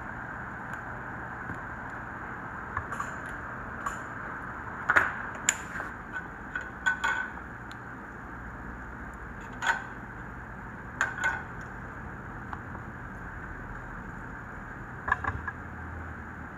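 Scattered light clicks and clinks of small metal tools being handled and set down on a workbench, over a steady hiss.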